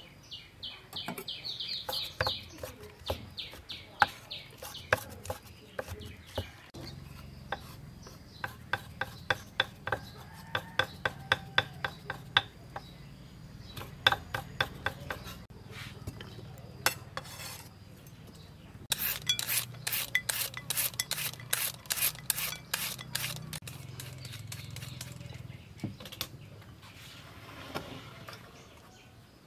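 Cleaver chopping on a wooden chopping block: runs of quick, sharp chops about four a second, with quieter scraping and handling between the runs. A soft swish of hands in a bowl of water comes near the end.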